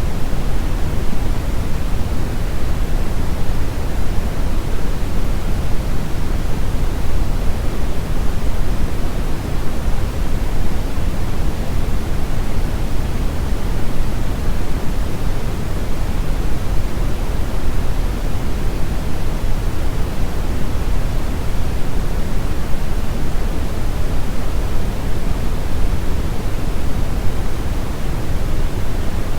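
Steady synthetic pink noise: an even, unbroken hiss that is heavier toward the low end, loud and unchanging in level.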